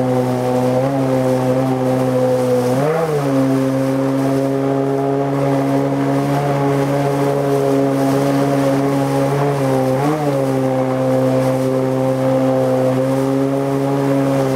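Tohatsu M50D2S two-stroke outboard with a water-jet unit, running at steady high revs as it drives an inflatable boat up a rapid. The revs rise briefly about three seconds in and again about ten seconds in.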